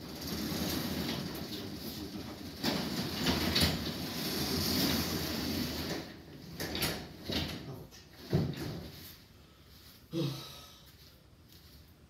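Sectional overhead garage door rolling down its steel tracks, shutting under its own weight after being let go: a continuous rattling rumble with a couple of knocks that stops abruptly about six seconds in, followed by three separate clunks from the door.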